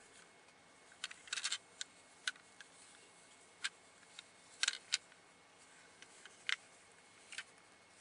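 About a dozen light, sharp clicks and taps of small hard objects, at irregular intervals, with a quick flurry a little after one second and a close pair near the middle.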